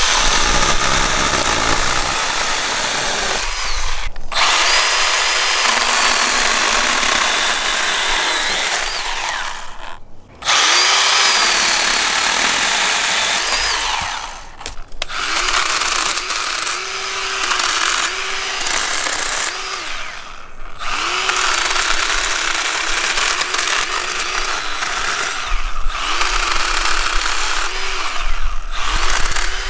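Milwaukee M12 Fuel Hatchet, a small battery-powered chainsaw with a 6-inch bar, running and cutting through logs and limbs, its electric motor whining as the chain chews through wood. It stops briefly about six times between cuts, and the motor pitch dips and recovers as the chain meets the wood.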